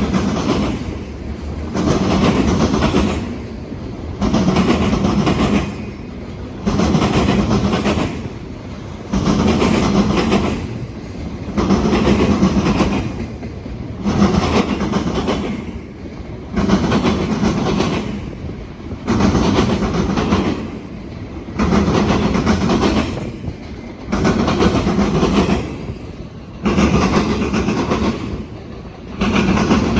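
Freight train cars rolling across a set of railroad diamond crossings, the wheels pounding the diamonds in a steady rhythm: a loud clatter about every two and a half seconds as each car's wheel sets cross, with quieter rolling noise in between.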